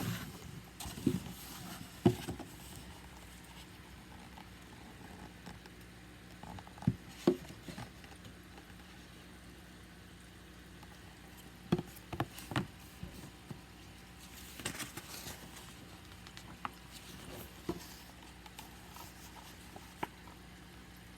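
Faint handling noises: scattered short clicks and taps, with a brief rustle about fifteen seconds in, over a steady low hum.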